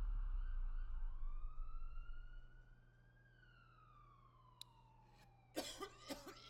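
Police siren wailing in the distance, a single slow rise and fall of pitch. Under it, a low rumble from a gunshot fades away over the first two seconds or so, and a few short clicks come near the end.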